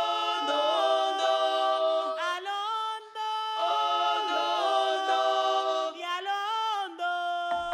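Several voices singing together a cappella in close harmony, holding long notes and sliding between pitches, with a brief break about three seconds in.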